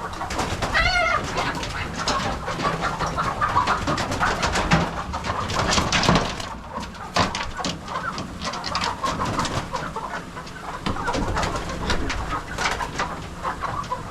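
Chickens in the barn rafters squawking and flapping as they are chased off their roost, with a pitched call about a second in and much irregular clattering and wing-beating.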